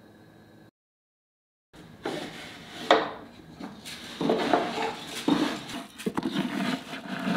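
Azumaya wooden rice bin being handled: its wooden drawer is slid and knocked, with rubbing and a hand rustling in the dry rice. A sharp wooden knock comes about three seconds in, then several lighter knocks.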